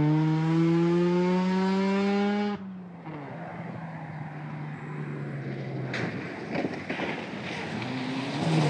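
Rally car engine under hard acceleration, its note rising steadily, cut off abruptly about two and a half seconds in. A quieter rally car engine running with gravel noise and a few sharp knocks follows, getting louder near the end.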